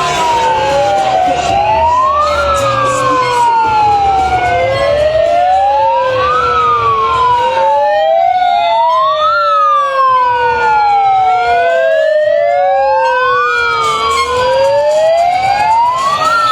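A wailing siren rising and falling slowly, about one cycle every four seconds, with a quick rise and a longer fall. A second, fainter siren wails higher and out of step with it.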